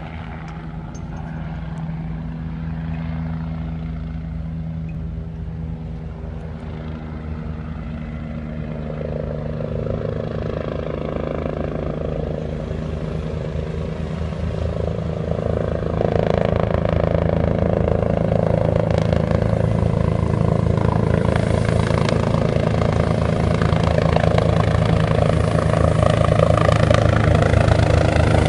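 Air-ambulance helicopter approaching and descending to land, its rotor and engine noise growing steadily louder, with a jump in loudness about halfway through.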